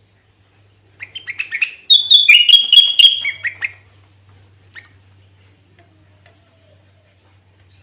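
Sooty-headed bulbul (kutilang) singing a loud, fast phrase of quick chattering notes for about three seconds, followed a second later by one short note.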